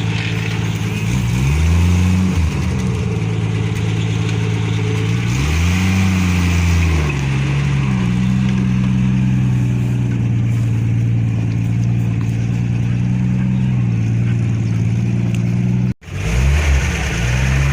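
Ford F-75 pickup's six-cylinder Willys engine running, revved up and back down twice in the first seven seconds, then idling steadily.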